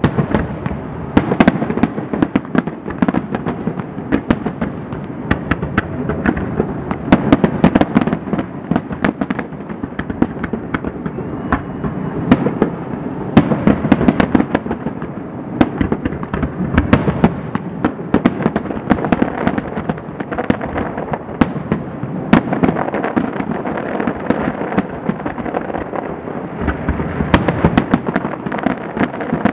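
Aerial fireworks shells bursting in a continuous barrage: many sharp bangs and crackles a second, with no let-up.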